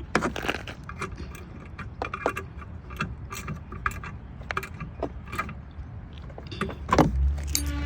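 Scattered, irregular clicks and light rattling of small parts handled by hand as the replacement car horn and its wiring are tied in place, with a low thump about seven seconds in.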